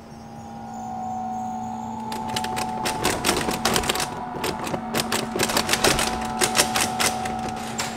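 A locked door's metal doorknob being rattled and jiggled hard, a fast, uneven run of clicks starting about two seconds in, over a steady held tone.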